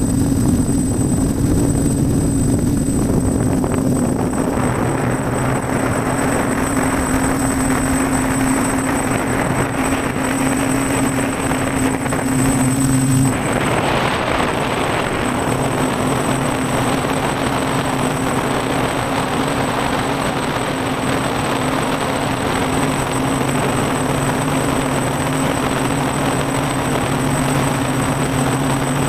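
F450 quadcopter's electric motors and propellers humming steadily while it climbs, heard from its onboard camera, with a rush of wind noise that swells a few seconds in. About 13 seconds in the hum briefly breaks and shifts pitch as the throttle changes, and the wind noise grows louder.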